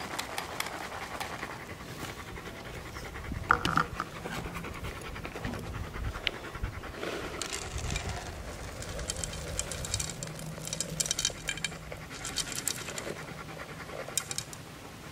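A dog panting steadily, with small clicks and scrapes throughout and one sharp knock about three and a half seconds in.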